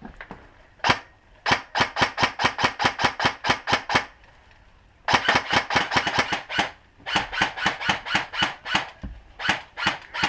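Airsoft gun firing: a single shot, then several rapid strings of sharp cracks at about seven a second with brief pauses between them, and two last single shots near the end.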